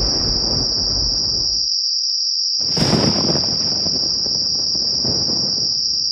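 A steady high-pitched insect drone, with a loud low rushing noise beneath it that cuts out for about a second near the middle.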